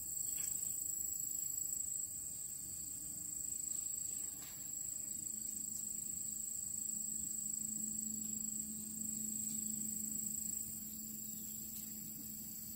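Insects trilling steadily in the surrounding vegetation, a continuous high-pitched whine. A faint low hum joins about five seconds in.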